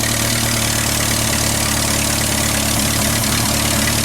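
Old car engine idling steadily with its valve cover off, the valvetrain exposed, after running 7000 km with vegetable oil as its engine oil.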